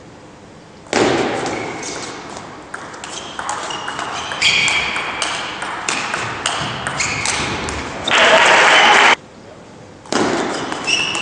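Table tennis rally: a celluloid ball clicking off the bats and table in quick succession, with short high squeaks from sports shoes on the court floor. A loud burst of noise about eight seconds in cuts off suddenly.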